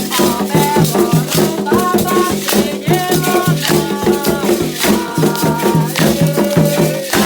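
Candomblé ceremonial music: a rattle shaken in a fast, even rhythm over drums, with a sung melody above.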